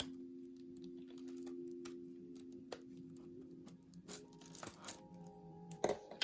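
Paper packaging being handled and torn open: scattered light clicks, a rustle of crinkling paper about four to five seconds in, then a few sharp taps near the end. Soft steady background music plays underneath.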